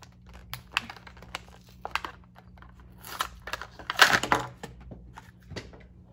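Plastic blister packaging of a Hot Wheels toy car crackling, clicking and tearing as it is pried open by hand, with the loudest crinkling burst about four seconds in.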